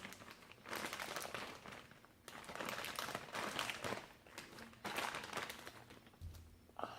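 Homemade slime with little balls mixed in being squeezed and worked by hand, giving several irregular bursts of soft crackling.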